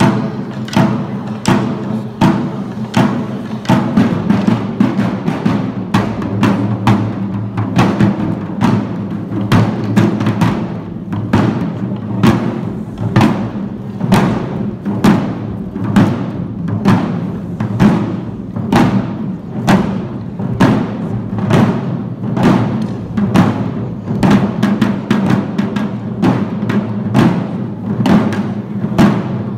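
Shishi odori deer-dance drums, the taiko worn by the dancers, beaten in a brisk, even rhythm of about two to three strokes a second over steady low tones.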